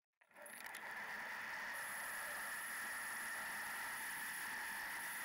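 Steady wind and tyre noise from a bicycle riding on a wet lane, heard through a bike-mounted camera's microphone. It cuts out for a moment at the very start.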